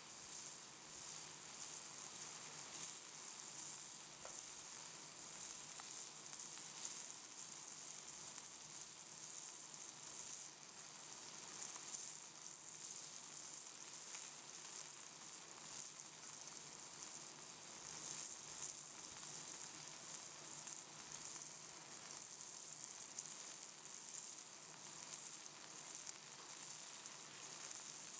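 Smashed beef burger patty sizzling steadily in a cast-iron skillet: an even high hiss with small crackles of fat spitting.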